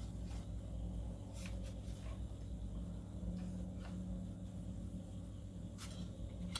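A few light clicks and taps from small objects being handled, over a steady low hum.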